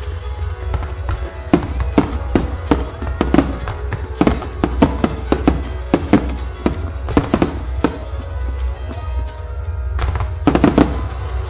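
Aerial firework shells bursting in rapid succession during a finale: many sharp bangs, several a second, with music playing underneath.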